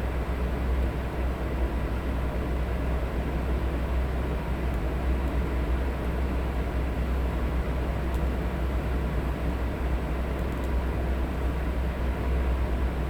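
Electric fan running steadily, giving an even white-noise hiss over a deep, constant hum. A couple of faint ticks sound in the second half.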